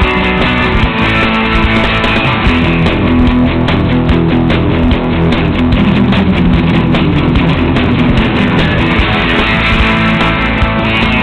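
Background music led by guitar, loud and steady throughout.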